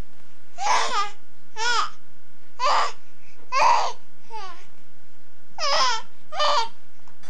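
Infant cooing and babbling: about seven short, high-pitched squeals and coos, each under half a second, some bending up and down in pitch.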